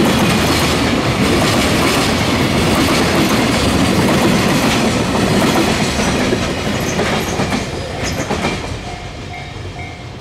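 Container wagons of a freight train rolling past on the rails. The noise dies away from about six to nine seconds in as the end of the train goes by. Near the end, a level crossing bell becomes audible, ringing in even, repeated tones.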